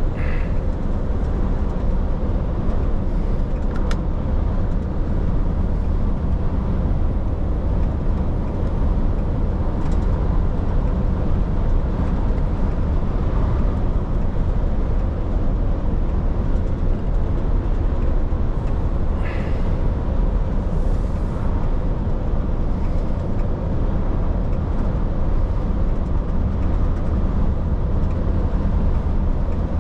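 Truck driving on the road: a steady low engine and road drone, with a few faint, brief higher sounds over it.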